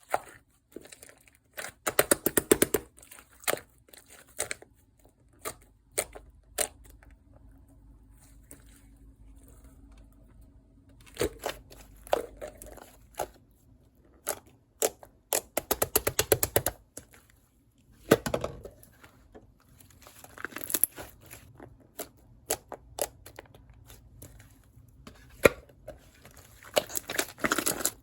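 Black slime being pressed and squeezed by hand, giving off sticky crackling and popping as air pockets burst. Three runs of rapid crackles, about two seconds in, in the middle and near the end, with single pops scattered between them.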